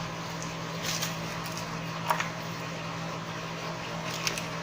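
A few light clicks of a metal repair tool on a smartphone's internal parts as the touch-panel flex connector is pried off its socket, over a steady low electrical hum. The sharpest click comes just after two seconds in, with two more near the end.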